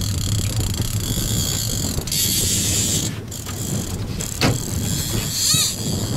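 Accurate Boss Extreme conventional fishing reel being cranked against a hooked striped bass, its gears whirring steadily, with a sharp knock about four and a half seconds in.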